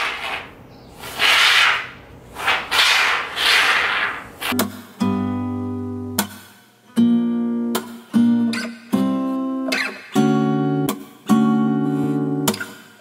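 A can of Great Stuff expanding foam spraying in a few spurts of hiss. About four and a half seconds in, acoustic guitar music takes over, chords plucked and left to fade about once a second.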